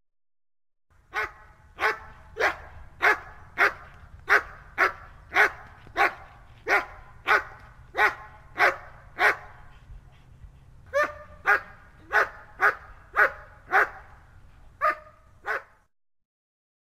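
German Shepherd barking repeatedly, single sharp barks at an even pace of about one every 0.6 seconds. There is a short pause about ten seconds in, then several more barks before it stops.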